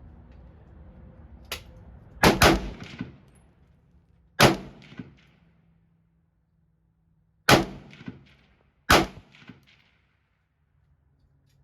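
Pistol fired about five times at uneven gaps, each shot sharp with a short ringing tail; two of them come in quick succession, and a fainter shot sounds about a second and a half in.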